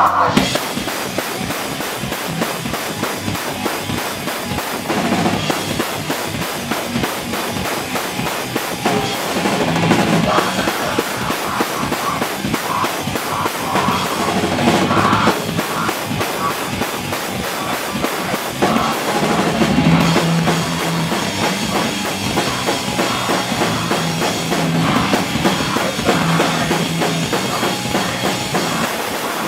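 Live rock band playing loud and fast: dense drumming on the kit with bass drum, snare and cymbals over electric guitars.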